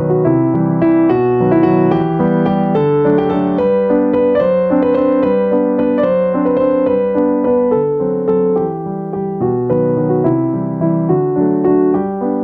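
Background piano music: a melody of evenly paced notes over held chords.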